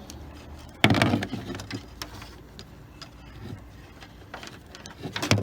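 Handling noise while multimeter probes are set on the battery terminals: a few clicks and knocks, with a louder knock and rustle about a second in and another near the end.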